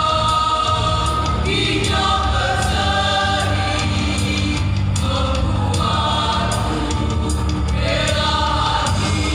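Choir singing a song over instrumental accompaniment with a steady, strong bass.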